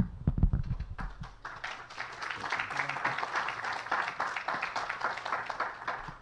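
Audience applauding, building up about a second in and stopping at the end, after a few low thumps at the start.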